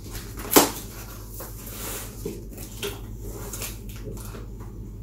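Cardboard box being opened by hand: one sharp snap of tape or a flap about half a second in, then faint rustling and handling of the packaging over a steady low hum.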